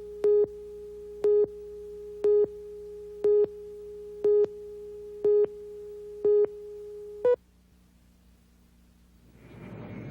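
Synthesized emergency-alert tone: short electronic beeps about once a second over a steady hum, eight in all, the last one slightly higher in pitch. The beeping cuts off suddenly, and near the end a low rumble swells up.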